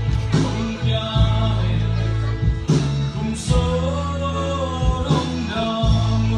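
Live gospel band playing: a male lead vocalist sings a slow melody in Tedim Chin (Zomi) over electric bass, acoustic and electric guitars, keyboard and a drum kit with occasional drum hits.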